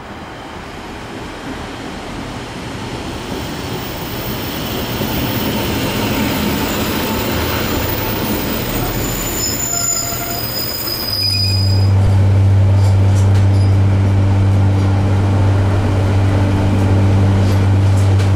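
A diesel passenger train pulling into the station, its noise building as it comes in, with high squealing as it slows. About 11 seconds in this changes abruptly to the steady low drone of the train's diesel engine, heard from inside the carriage.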